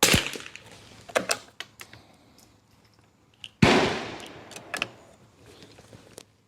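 Two shots from a Kimber 82G .22 rimfire target rifle, about three and a half seconds apart, each trailing off in an echo, with lighter clicks and knocks in between.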